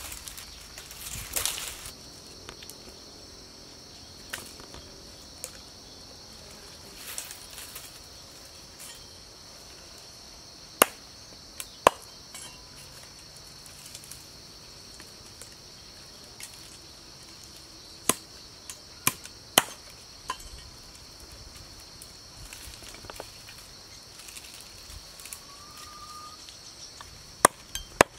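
A broad-bladed knife chopping vine strands on a wooden stump block: single sharp knocks spaced several seconds apart, with two quick pairs. Insects buzz steadily and high underneath, and the strands rustle at the start.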